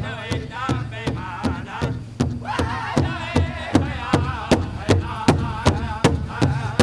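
Powwow drum group singing a jingle dress song, several voices in a high, wavering unison over a steady, fast beat on a large shared drum, about four strokes a second.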